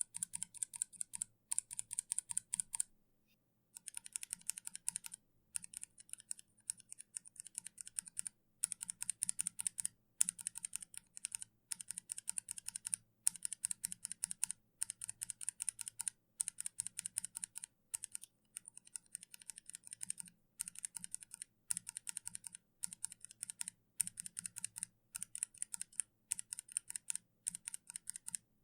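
Mechanical keyboard with Kailh switches being typed on rapidly, in bursts of about a second of quick keystrokes with short breaks between them and a longer pause about three seconds in.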